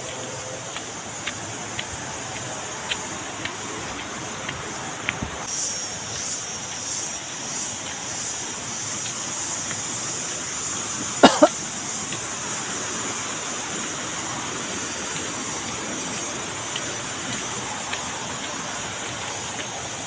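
Footsteps crunching on a dry-leaf dirt path, a soft step every half second or so, over a steady high hiss and the rush of a stream ahead. A loud brief double sound comes about halfway through.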